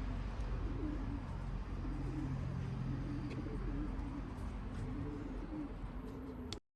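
Racing pigeons cooing: repeated low, wavering coos over a steady background hum. The sound cuts off abruptly near the end.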